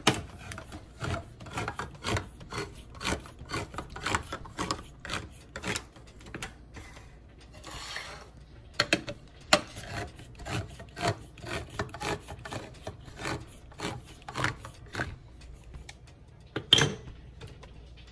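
Handheld can opener cutting around the lid of a tin can: the key is turned in repeated clicking, grinding strokes, about two a second. Near the end there is one sharper, louder click.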